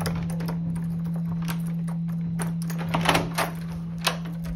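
A key turning in a metal lever-handle door lock and the door latch releasing as the door opens: a series of sharp clicks, the loudest clatter about three seconds in. A steady low hum runs underneath.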